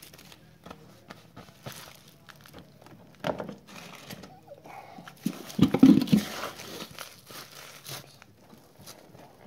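Knocks, clicks and rattling as a scooter is tilted over by hand to drain the last of the flushing oil from its engine, with a louder rough burst about six seconds in.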